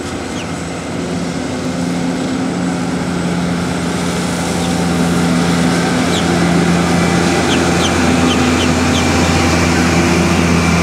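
Engine of a parking-lot tram's tractor unit pulling its passenger cars, a steady low hum that grows louder as the tram approaches and passes close by.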